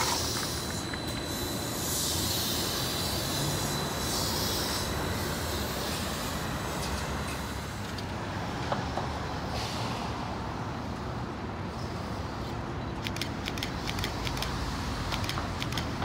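Neoplan electric trolleybus moving past amid street traffic, with several bursts of air hissing in the first few seconds and another near the middle. A quick run of clicks comes near the end.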